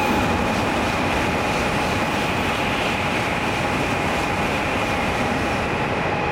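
N700-series Shinkansen passing through the station at high speed: a loud, steady rush of air and running noise. The platform's ringing warning bell for a passing train carries on underneath.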